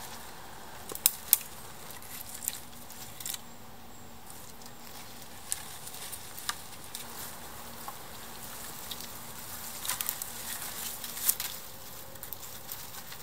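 Dry twigs and brushwood crackling and snapping as thin dead branches are pushed and woven into the side of a log lean-to shelter. The snaps are scattered: two sharp ones about a second in, and a busier cluster near the end. A faint steady hum runs underneath.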